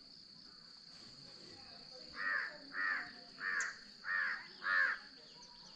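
A crow cawing five times in a row, roughly two caws a second, starting about two seconds in, over a steady high-pitched insect drone.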